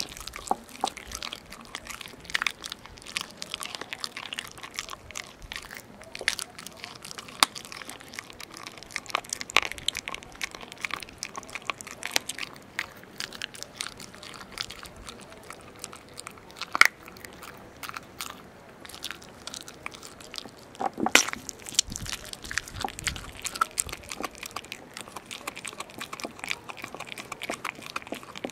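Landseer Newfoundland puppy chewing a raw chicken leg, bones and all: wet gnawing with irregular sharp crunches and bone cracks, close to the microphone. A couple of louder cracks come past the middle.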